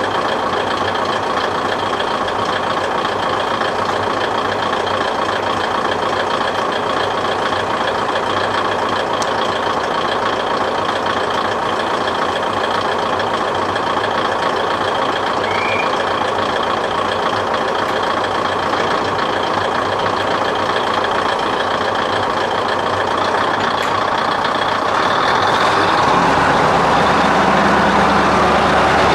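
Kominato Railway KiHa 200 series diesel railcar idling steadily. Near the end its engine opens up and runs louder and deeper as the train starts to pull away.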